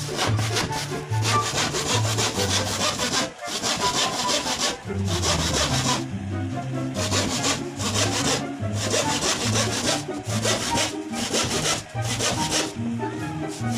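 Hand saw cutting through a sheet of plywood: runs of rapid back-and-forth rasping strokes, broken by a few short pauses.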